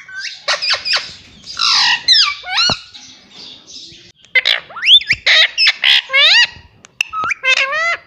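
Indian ringneck parrot squawking, a quick run of sharp squawks and short rising whistled calls, loudest in a cluster from about four to seven seconds in.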